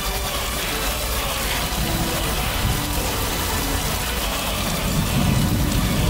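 Heavy rain falling steadily during a thunderstorm, with a low rumble swelling about five seconds in.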